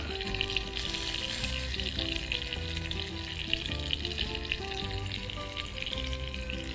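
A salmon steak sizzling steadily in a nonstick pan, frying in its own rendered fat with no oil added. Soft background music plays underneath.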